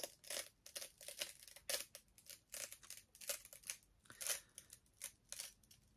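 Dry paper crackling and rustling as stuck-together paperback books are handled and worked apart, a rapid, irregular series of short crackles, the loudest a little past four seconds in.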